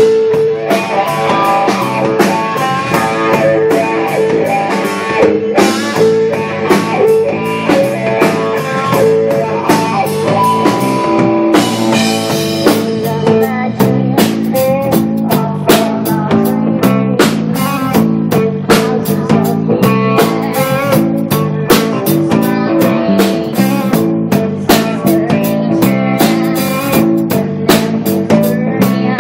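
Live rock band playing: electric guitar, bass, drum kit and keyboard over a steady drum beat.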